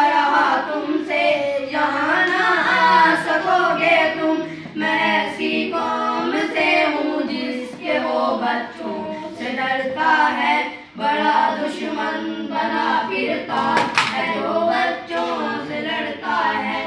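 A few boys singing an Urdu song together in chorus, unaccompanied, reading the words from a booklet.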